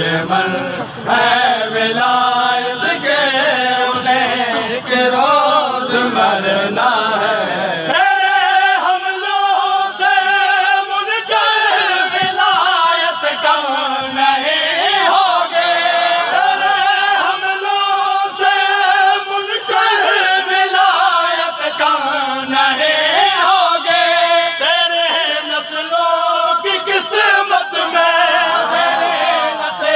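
Men's voices chanting a noha, a Shia mourning lament, together, with a crowd behind them, carried over large loudspeakers. The bass drops away sharply about eight seconds in.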